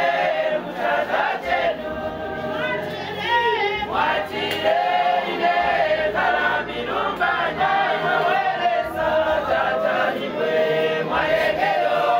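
Group of women mourners singing and wailing together, many voices overlapping in long held and sliding notes.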